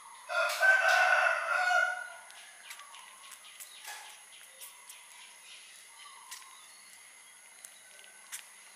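A rooster crows once, a call of about a second and a half, just after the start. Faint chirps and clicks follow over a steady high hiss.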